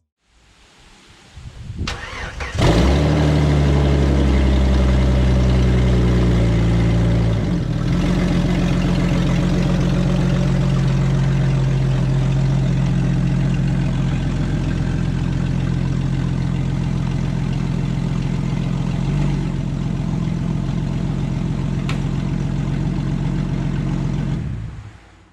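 Turbocharged Jeep Grand Cherokee engine, with its stainless exhaust header cracked, starting after sitting for months. It catches about two and a half seconds in and runs at a fast idle. About seven seconds in it drops to a lower, steady idle, then shuts off near the end.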